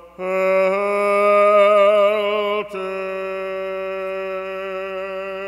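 A man chanting an Orthodox hymn in Byzantine style, drawing one word out over long held notes with a slight waver. There is a short break about two and a half seconds in, then another long sustained note.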